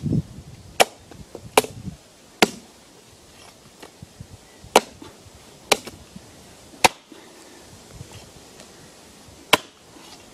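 Blunt axe chopping into a plum tree stump: about eight sharp, separate chops at uneven gaps, from a second to nearly three seconds apart.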